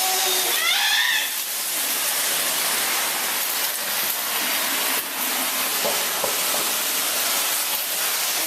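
A steady, loud hiss throughout, with a short high-pitched child's squeal about a second in.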